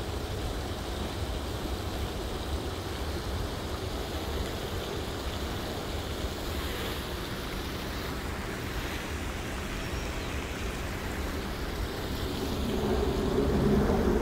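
Steady outdoor rushing noise with a low rumble, growing louder near the end.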